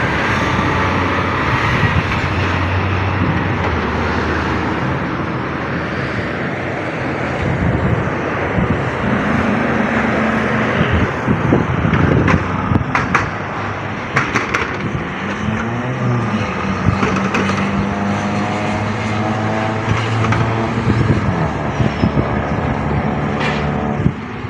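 Semi-truck diesel engines running, the engine pitch rising and falling a few times in the middle as the revs change.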